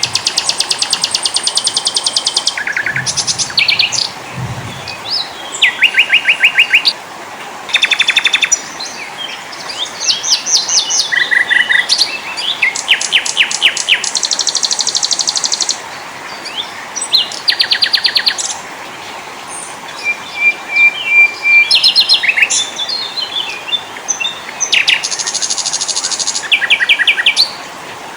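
A mix of small forest songbirds singing in quick succession. Phrases of rapid trills and fast repeated high chirps, each about one to two seconds long, follow one another, over a steady background hiss.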